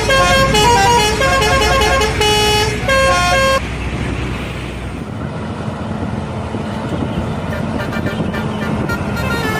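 Indonesian bus telolet horn, a multi-note musical horn, playing a quick tune of changing notes that cuts off about three and a half seconds in. Engine and road noise follows.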